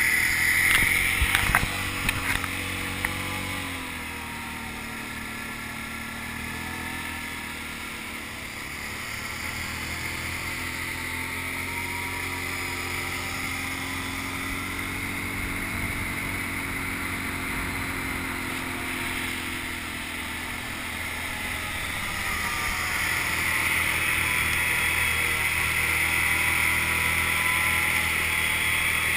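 ATV engine running while the quad rides along a dirt trail, its pitch rising and falling with the throttle, over a steady rush of tyre and wind noise. Louder at the very start, quieter for a stretch, then louder again in the last third.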